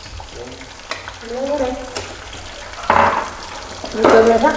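Featherback fish cakes frying in a pan of hot oil, a steady sizzle, with a few light clicks of utensils.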